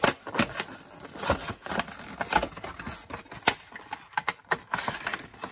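Toy car packaging being opened and handled by hand: a run of irregular sharp clicks and crackles.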